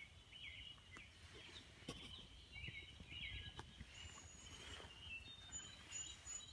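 Faint songbirds chirping and calling in the woods: short repeated chirpy phrases over a quiet background, with a few thin high whistled notes in the second half.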